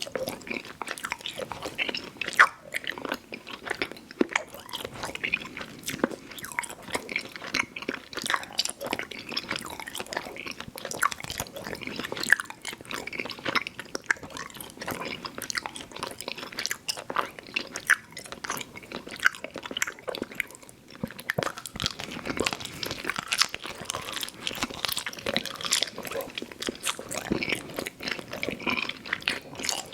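Close-miked mouth sounds of eating chewy Fruit Roll-Up fruit leather candy: continuous sticky chewing, smacking and wet clicks, with sharper bites here and there.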